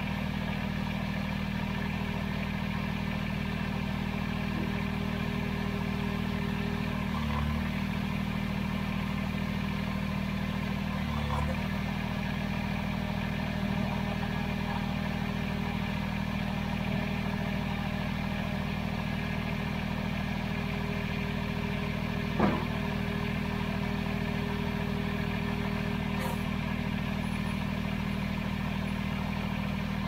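Kubota BX23S compact tractor's three-cylinder diesel engine running steadily. A few light clicks, and one sharper click about three-quarters of the way in.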